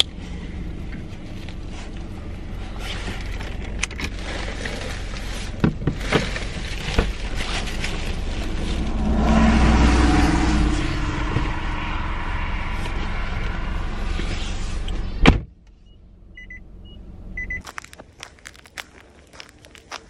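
Rustling and clicks of a delivery bag being handled inside a parked car, over a steady low hum. A sharp knock comes about fifteen seconds in, then the sound turns quieter, with a few faint beeps and footsteps on a snowy path near the end.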